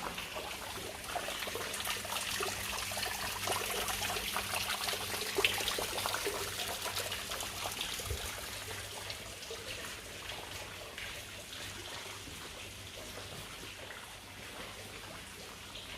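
Water trickling and splashing, a dense patter that swells in the first few seconds and then slowly fades.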